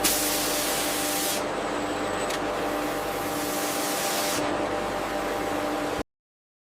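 Steady machinery hum with two long bursts of hissing, the first about a second and a half long and the second about two seconds; all sound cuts off abruptly about six seconds in.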